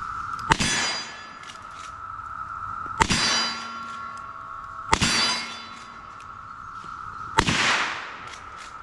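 Single-action revolver fired four times at an unhurried pace, about two to two and a half seconds apart. Each shot is followed by a ringing metallic clang, typical of a steel target being hit.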